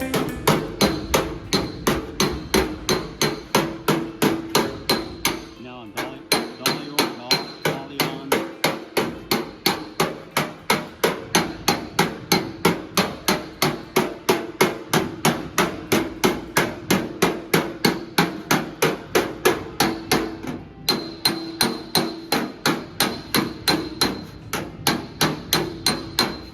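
Body hammer striking the sheet-steel fender of a 1955 Chevy, panel-beating out dents, about three ringing strikes a second, with two brief pauses.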